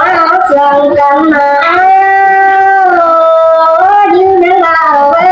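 A woman singing a Thái (Tai) folk song solo, holding long notes and sliding between them in a drawn-out, ornamented melody.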